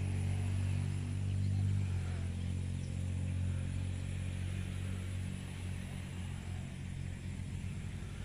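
Low engine rumble of a motor vehicle, loudest a second or two in and then slowly fading.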